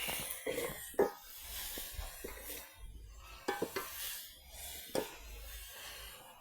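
Dishes and utensils knocking and scraping in a kitchen: a few sharp clinks over a soft hiss.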